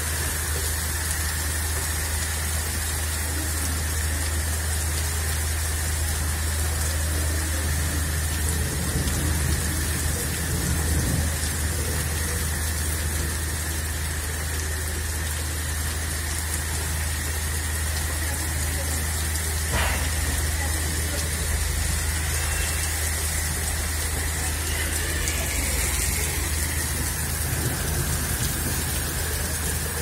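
Heavy monsoon rain pouring steadily, an even hiss with a low rumble underneath.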